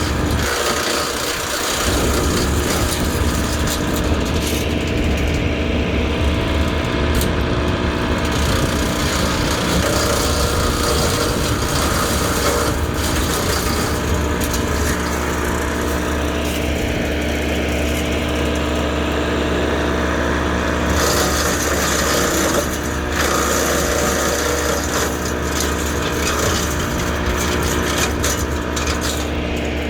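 Land Pride WC1503 PTO-driven wood chipper, powered by a tractor, running steadily while branches are fed through and chipped, the cutting noise rising and falling as wood goes in, with a few sharp knocks.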